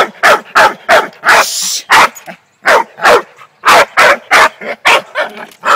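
Bull terrier barking rapidly and repeatedly, short sharp barks about two to three a second, with a brief breathy sound and a short pause about two seconds in.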